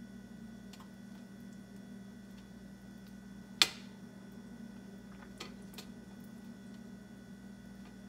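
Tomato sauce being spread over a pizza crust on a perforated metal pan: scattered soft ticks and taps, with one sharp click about three and a half seconds in, over a steady low hum.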